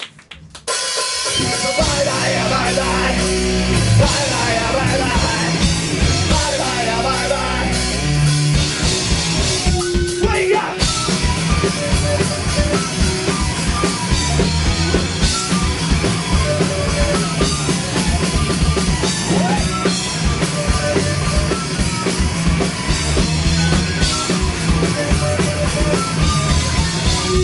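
Rock music with a full drum kit and bass drum driving a steady beat. It starts loud about a second in.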